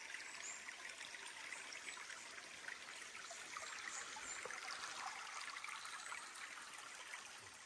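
Shallow rocky rainforest creek trickling and burbling over stones: a steady, gentle water sound.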